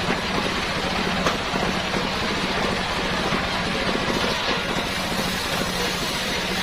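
Engine-driven homemade circular saw running steadily: an even mechanical hum over a broad noise, with a faint short click about a second in.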